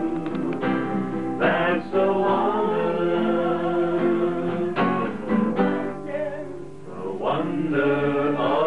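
Men singing to a strummed acoustic guitar, the voices holding long notes over the chords.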